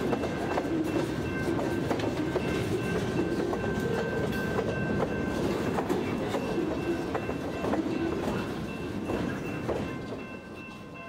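Loaded freight cars rolling slowly past at close range: a steady wheel-and-rail rumble with wheels clicking over rail joints and a thin, steady high whine. The sound falls away somewhat near the end.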